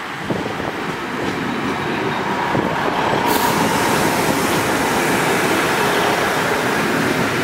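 Class 150 diesel multiple unit running into the platform and past close by: diesel engines running and wheels rumbling on the rails, growing louder as the carriages pass. A short hiss comes about three seconds in.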